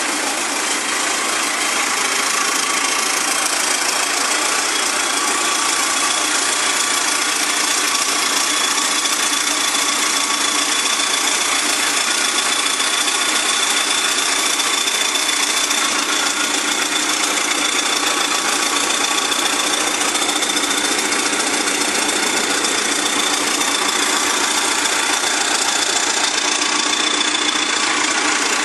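Massey Ferguson 292 tractor's four-cylinder diesel engine running at a steady speed, with no change in revs. The owner presents it as running perfectly.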